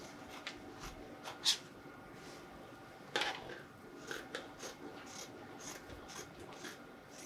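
Dressmaking scissors cutting through layers of fabric: irregular short snips with a little rustling. There is a sharper snip about a second and a half in and another about three seconds in.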